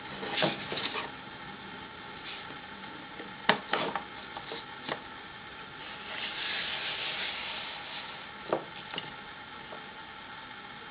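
Wooden parts of a small hand-made wooden printing press being handled and fitted together: a series of sharp wood-on-wood knocks and clatters, the loudest about three and a half seconds in, with a few seconds of rubbing near the middle.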